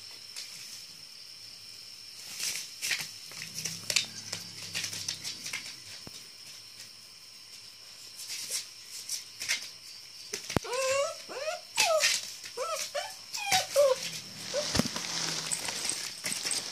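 German Shepherd puppy whining in a run of short, high, rising-and-falling yelps that start about ten seconds in. Earlier there is scattered scuffling and tapping on the plastic tarp underfoot.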